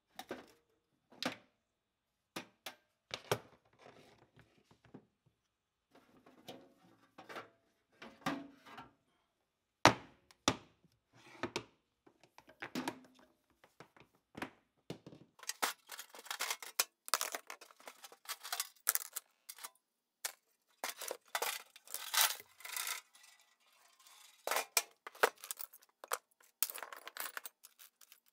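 Metal tools handled on a steel-topped workbench: clicks and knocks as an old steel toolbox is opened and a heavy electric hammer and its parts are lifted out and set down. About fifteen seconds in, dense clinking and rattling begins as a pile of rusty steel bits and rods is sorted by hand.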